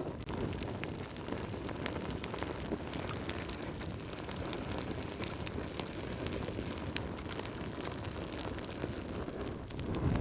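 Wood fire crackling in a fireplace: scattered sharp pops and snaps over a steady low rustle of burning, swelling louder briefly near the end.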